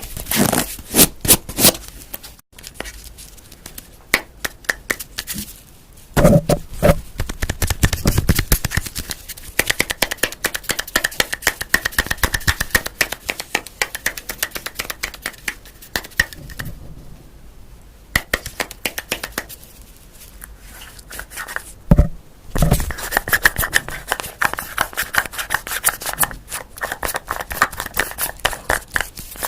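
Close-miked ASMR trigger sounds: rapid scratching and tapping on objects, coming in several runs of quick clicks with short pauses between them and one sharp knock about two-thirds of the way in.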